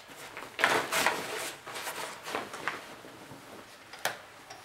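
Rustling and shuffling of gear being handled and stuffed into a hunting backpack, busiest in the first half, with one sharp click about four seconds in.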